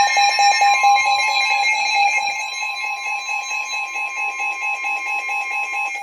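Weather alert radio sounding its alarm for a severe thunderstorm warning: a loud, rapidly pulsing beep over a steady long tone, both cutting off near the end as the broadcast voice message is about to start.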